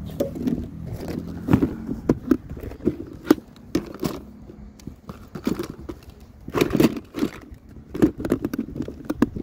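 Rummaging through a pile of discarded junk: an irregular run of knocks, clicks, scrapes and crinkling as objects are picked up, shifted and dropped.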